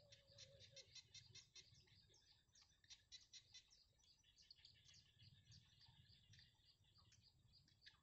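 Bittern nestlings giving a fast, faint run of short high begging chirps while the adult feeds them in the nest.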